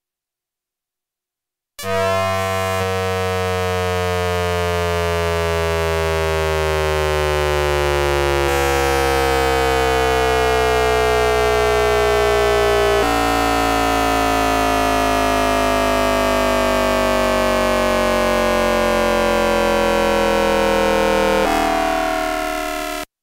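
Hanshin 5500 series train's VVVF inverter and traction-motor whine picked up on a radio, with the inverter frequency laid over as a synthetic tone. It starts suddenly about two seconds in as a stack of electronic tones gliding steadily down in pitch as the train slows. The pattern shifts abruptly three times as the inverter changes switching mode, then it cuts off sharply near the end.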